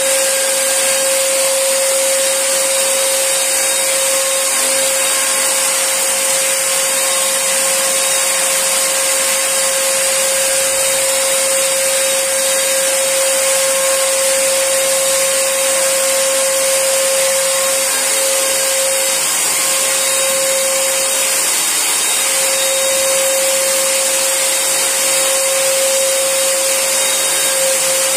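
Nankai portable electric paint sprayer running steadily as wall paint is sprayed: a constant motor whine over a hiss of air and paint mist.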